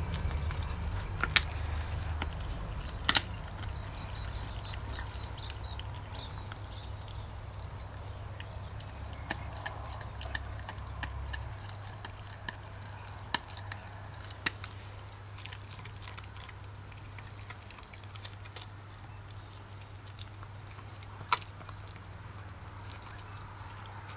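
Leonberger puppy gnawing a raw chicken frame: wet chewing with occasional sharp crunches of bone.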